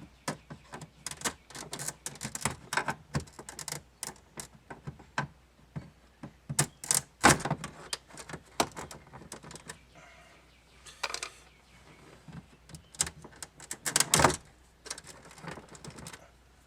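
Plastic dash trim clips on a 1994 GMC Suburban being pried and worked loose by hand and tool: scattered small clicks and rattles, with louder knocks about seven and fourteen seconds in.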